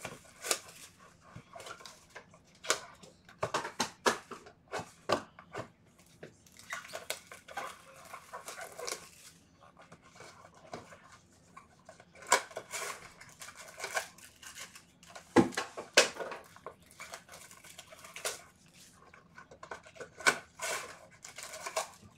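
Plastic wrapping crinkling and cardboard rustling as a Bowman Chrome hobby box of baseball cards is unsealed and its foil packs pulled out. The sound comes in irregular bursts of crackling and clicks.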